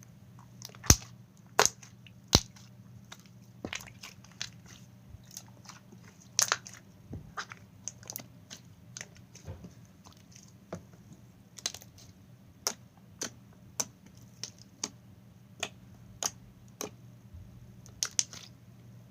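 Glossy slime being kneaded and squished by hand as lip gloss is mixed into it, giving irregular sharp clicks and pops.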